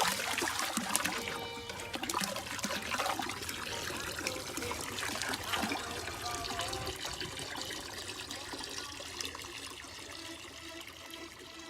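Rushing, gurgling water, gradually fading out, with music coming up underneath near the end.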